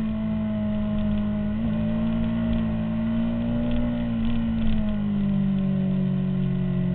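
2003 Honda CBR600RR's inline-four engine running at speed, heard onboard, holding a steady note that sags slowly and then drops lower about five seconds in, with wind rush over the microphone.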